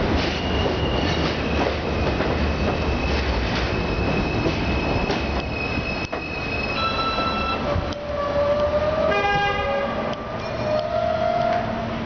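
R160A-1 subway train pulling into an elevated station: a steady rumble with wheels clicking over rail joints and a high steady whine for the first six seconds, then a series of pitched squeals and whines as it slows, with a short buzzing tone about nine seconds in.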